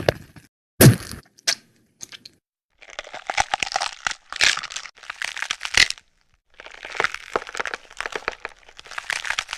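Bone-crack gore sound effects: one sharp crack about a second in, then two long runs of dense crunching and crackling, split by a short pause.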